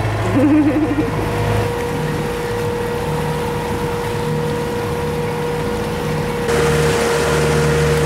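A Beneteau Oceanis 45 sailing yacht's inboard diesel engine running steadily as the boat motors along, with a constant hum.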